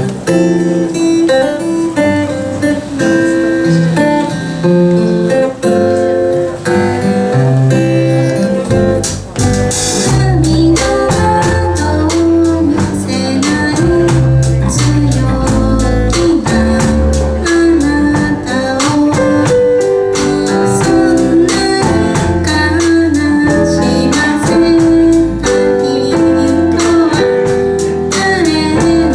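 Live band playing a mellow pop song, led by guitar, with bass and drums coming in about five seconds in.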